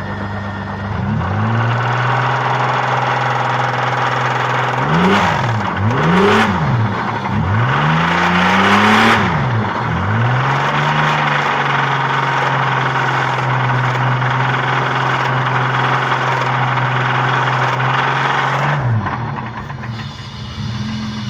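Car engine revved hard and held at high revs. Its pitch rises and falls several times in the middle, then holds steady before dropping back near the end.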